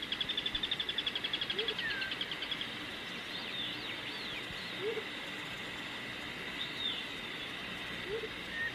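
Jungle ambience of birds and other animal calls: a fast pulsing trill for the first couple of seconds, a steady high chirring underneath, and scattered short whistling calls.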